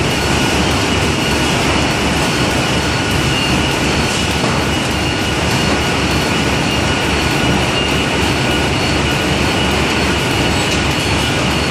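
Steady, loud factory machinery noise from a Castaldini corrugated-box stacking line and its powered roller conveyors running continuously, with a constant high whine over a fast, even low rumble.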